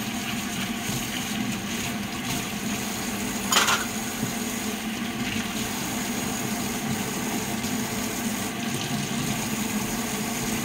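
Kitchen tap water running steadily into a sink while vegetables are rinsed, with one brief knock about three and a half seconds in.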